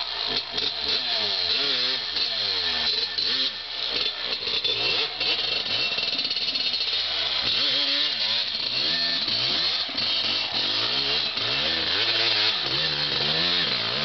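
Dirt bike engine revving, its pitch rising and falling over and over as the throttle is worked through the sand.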